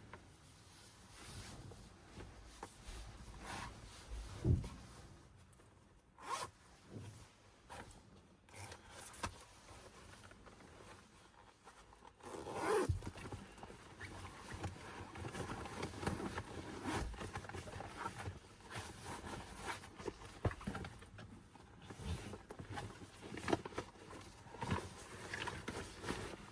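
A zipper being pulled in short, irregular strokes, mixed with scraping and handling noises.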